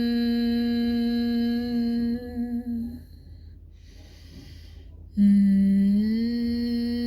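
Bhramari pranayama (bee breath): a steady nasal hum on the out-breath that stops about two to three seconds in. A soft breath in follows, then the hum starts again about five seconds in, a little lower at first and rising to its steady pitch.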